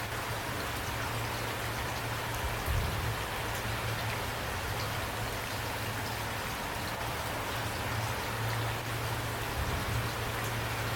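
Steady rain falling, with drops pattering on a surface over a low, even rumble.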